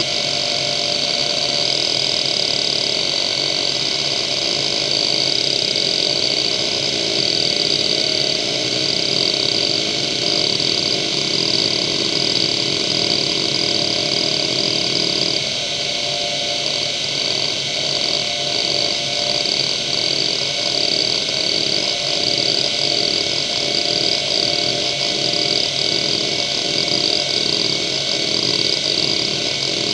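Seagate ST9145AG two-platter hard drive running the hdmotion seek test: the head actuator seeks continuously, chattering and buzzing over the steady high whine of the spindle. About halfway through, the seek pattern changes and the seeks settle into an even rhythm of roughly one and a half pulses a second.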